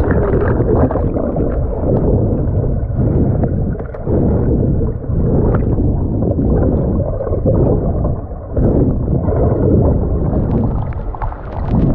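Underwater sound heard from a submerged action camera in a swimming pool: muffled rushing and gurgling of water and bubbles around a swimmer, swelling and easing every second or so.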